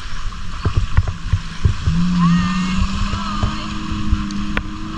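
Jet ski engine running under way, its note rising about two seconds in and climbing slowly, with wind buffeting the microphone.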